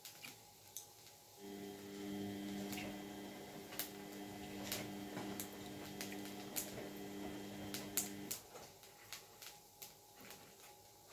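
A kitchen appliance gives a steady electric hum that starts about a second in and stops about three seconds before the end. Light, sharp clicks and pops are scattered throughout.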